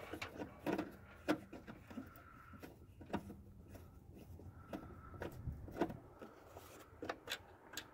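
Scattered light clicks and taps of a hand tool against the metal and plastic parts of a distributor while wiring it, about a dozen short knocks spread unevenly through.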